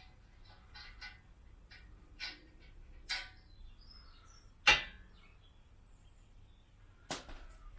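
Scattered metallic clicks and knocks of steel engine-crane parts and tools being handled during assembly, about five distinct strikes with the loudest just past the middle.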